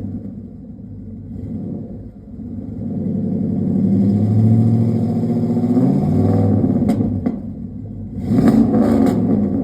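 Truck engine with a modified exhaust revving: the pitch climbs and holds for a few seconds through the middle, then two quick blips of the throttle near the end.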